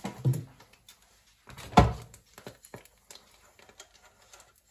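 Kitchen handling sounds at an air fryer basket: one sharp knock a little under two seconds in, followed by a few lighter taps and clicks.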